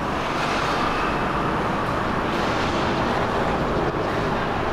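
Steady road-traffic ambience: an even rush and low rumble of passing vehicles.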